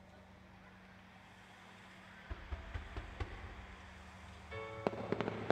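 Fireworks display with a faint steady background. Low thumps of fireworks begin about two seconds in. Near the end, music from the show's loudspeakers starts together with a run of sharp cracks from bursting shells.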